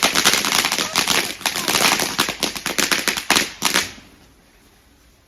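Garden firework crackling: a dense, rapid run of sharp pops and cracks that stops abruptly about four seconds in.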